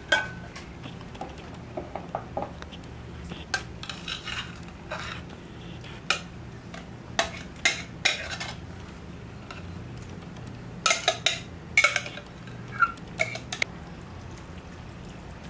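Metal whisk and spoon clinking, tapping and scraping against glass mixing bowls as a sour cream and soup mixture is scraped into sliced zucchini and stirred in. The taps are irregular, with a quick run of clinks about eleven seconds in.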